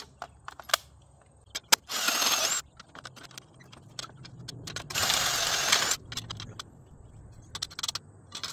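Ryobi cordless drill running in two short bursts, the first about half a second and the second about a second long, boring a hole through an aluminium locking plate. Light clicks and taps come between the bursts.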